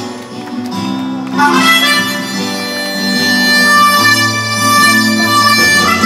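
Acoustic guitar strummed as a song intro, with a harmonica melody coming in over it about a second and a half in, played loud through a PA.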